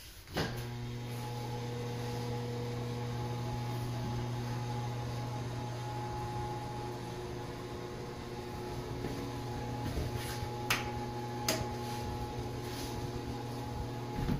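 Steady electric fan motor hum: a low drone with several fixed higher tones above it. Two faint clicks come late on.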